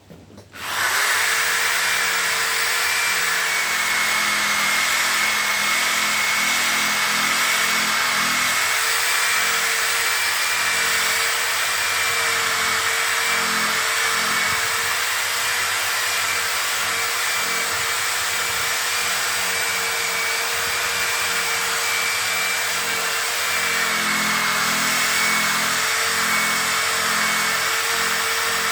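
Power tool spinning a polishing pad against a plastic headlight lens, polishing out scratches. It starts about a second in and runs steadily with a whine.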